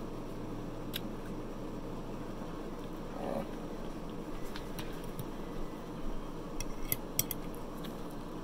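Eating sounds: chewing with a few sharp clicks of a metal fork against the plate, clustered and loudest near the end, over a steady background hum.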